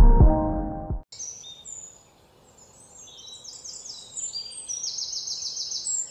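Background music ends about a second in. Several birds then chirp and trill over faint outdoor background, with a fast, evenly repeated high trill near the end.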